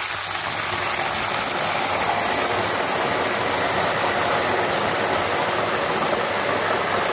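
Salt-and-turmeric water boiling up in hot coconut oil among frying jackfruit chips, a loud, steady sizzling hiss. This is the seasoning step of jackfruit chips, where the salt water is added near the end of frying.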